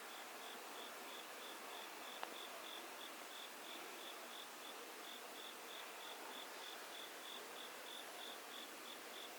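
A cricket chirping in an even rhythm, about three or four high chirps a second, over a faint steady hiss. There is a single sharp click about two seconds in.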